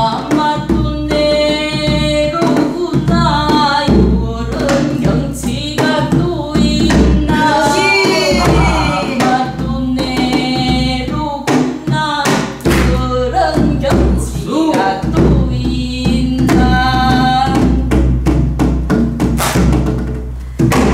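Pansori singing: a woman's voice sliding and wavering in pitch through a sung phrase, accompanied by sharp strokes on a buk barrel drum.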